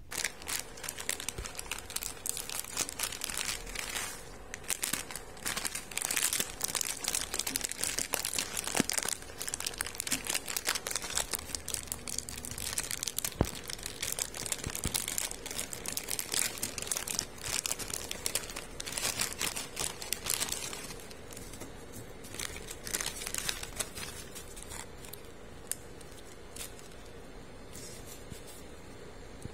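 Plastic instant-noodle packet crinkling as it is torn open by hand and the noodle block and foil seasoning sachets are handled. The rustling is dense for roughly the first twenty seconds, then thins to occasional soft crinkles.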